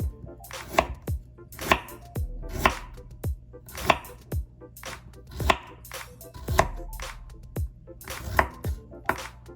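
Kitchen knife chopping on a cutting board, about two cuts a second, unevenly spaced.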